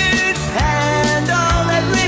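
A song playing: a sung vocal over band accompaniment with a regular drum beat.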